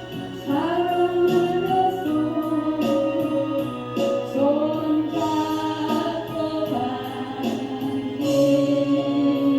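A gospel song sung to instrumental accompaniment, with long held notes.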